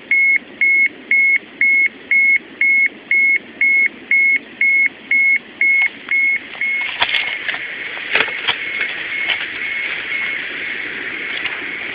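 Ukrainian-made radiation dosimeter sounding its alarm, a high-pitched beep repeating about twice a second: the monitor's warning of a high radiation reading. The beeping stops a little past halfway, leaving a few knocks over a steady hiss.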